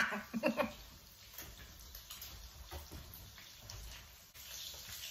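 A man laughing heartily for a moment at the start, then quiet kitchen noise with a few soft knocks and, near the end, a faint steady hiss.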